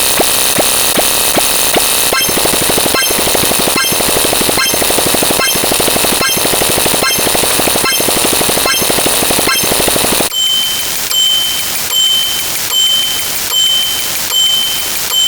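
Loud, dense stack of layered sound effects with a fast, even clicking rhythm. About ten seconds in it switches abruptly to a repeating high beep, a little more than once a second.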